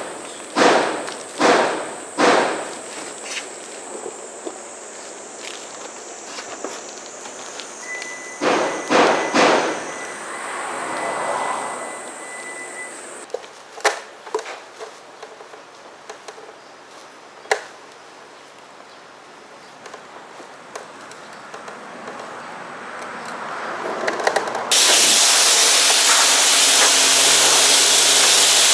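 A few sharp knocks in the first couple of seconds, then quiet handling sounds with scattered clicks. About 25 s in, a Kärcher K3 Silent pressure washer starts spraying water with a loud steady hiss over a low motor hum, rinsing the car.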